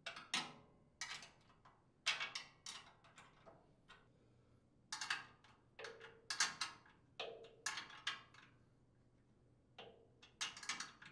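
A steel wrench clinking on nuts and against the chipper shredder's sheet-metal chute housing as the nuts are tightened: a string of irregular sharp metallic clicks.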